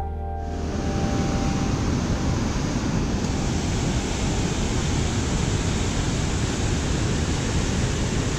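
Steady roar of the rushing white water at Murchison Falls, a dense, even rush with no let-up.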